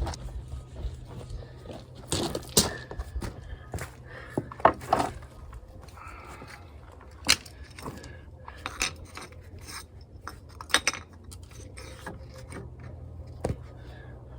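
Metal foundation hardware being handled: irregular metallic clinks and sharp knocks, a few of them loud, over a steady low hum.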